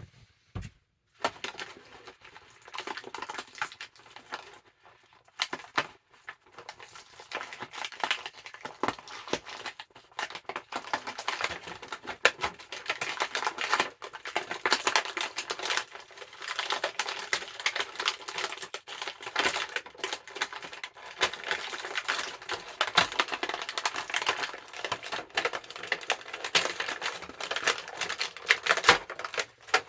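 Plastic action-figure packaging being handled: a rapid, irregular crackling and clicking of the plastic tray and wrappings as the figure is worked free, starting about a second in.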